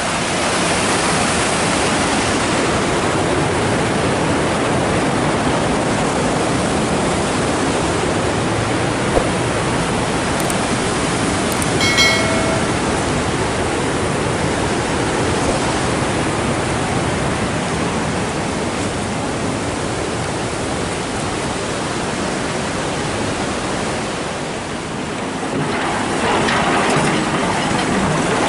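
Fast, flood-swollen river rushing over rocks and boulders, a steady loud rush of water. A brief pitched chime sounds about midway.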